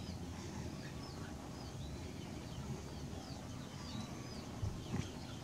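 Small birds chirping in short, quick calls that repeat through the whole stretch, over a low rumble, with two soft knocks near the end.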